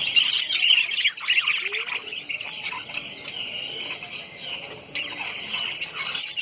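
A group of lovebirds chattering: a dense, continuous run of high, shrill chirps and squawks, with a few sharper, higher notes about a second in.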